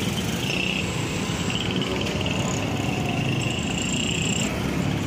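French fries frying in a large wok of hot oil, over a steady low rumble. A faint high whine comes and goes in the middle.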